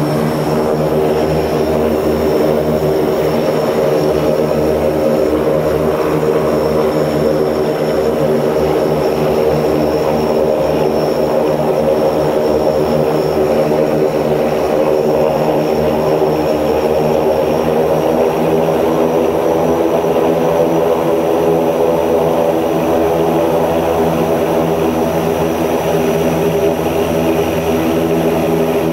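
Antonov An-24B's Ivchenko AI-24 turboprop engines running steadily, heard from inside the aircraft: a dense propeller drone with a thin high turbine whine above it.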